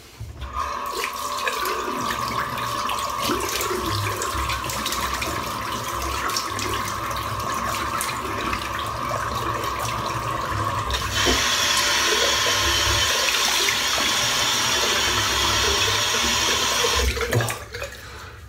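Bathroom tap running into a sink while water is splashed over a freshly shaved head to rinse off the shaving lather. The water sound grows brighter and a little louder about two-thirds of the way through, then the tap shuts off suddenly near the end.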